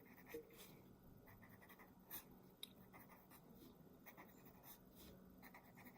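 Faint scratching of a drawing tool on paper: short, repeated strokes drawing zigzag lines.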